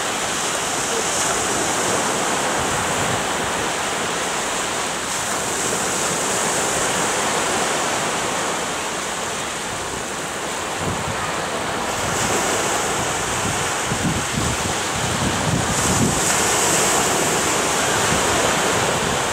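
North Sea surf breaking and washing up onto a sandy beach in a steady rush, with wind buffeting the microphone in low gusts from about eleven seconds in.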